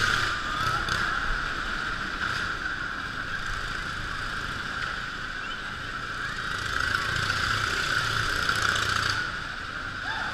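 Motorcycle engine running as the bike circles the wooden wall of death. It swells and fades: loud at first, dipping in the middle, rising again towards the end and falling off just before it.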